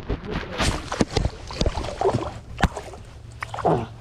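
Irregular knocks and bumps on a small fishing boat, five or six sharp ones over a low steady hum, as a hooked crappie is being fought.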